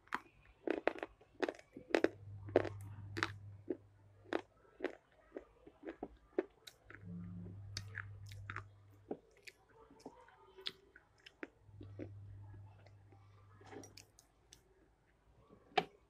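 Close-up crunching and chewing of a hard black item dipped in water: many sharp, irregular crunches as it is bitten and chewed.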